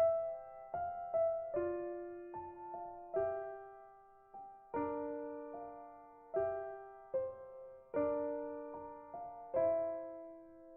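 Slow, gentle piano music: single notes and chords, each struck and left to fade.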